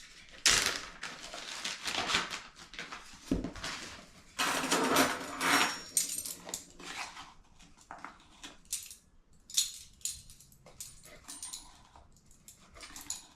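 Measuring spoons clinking and scraping against the ingredient containers and the mixing bowl as baking soda and salt are measured out: a string of short, uneven scrapes and clicks.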